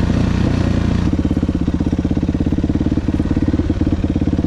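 Yamaha YZ426F four-stroke single-cylinder dirt bike engine: the revs drop about a second in, and it then idles with a steady, even pulse.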